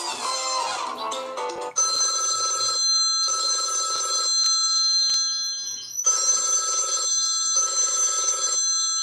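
Samsung Galaxy S3 ringtones. A musical tone ends about two seconds in, and a telephone-bell style ringtone starts: two rings of about a second each with a short gap, then a pause, and the double ring repeats about four seconds later.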